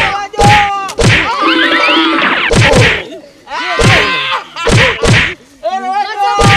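Repeated loud whacks of blows landing on a person, about eight spread over a few seconds, struck with a raised shoe and swinging arms. Yelling and crying voices sound between the strikes.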